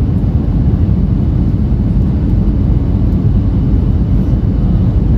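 Steady low rumble of the engines and rushing air heard inside the cabin of a jet airliner on final approach, just above the runway.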